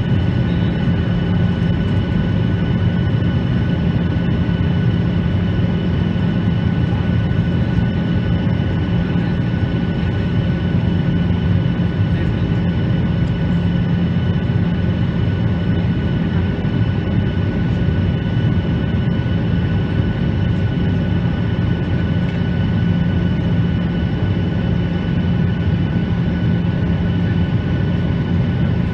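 Jet airliner cabin noise in flight: the turbofan engines and airflow make a steady, even roar with a low hum and faint high whining tones, heard from inside the cabin.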